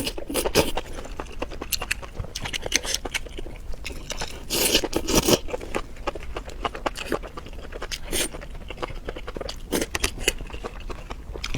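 Close-up eating sounds: irregular crunching, biting and wet chewing, with a denser run of crunches about four to five seconds in.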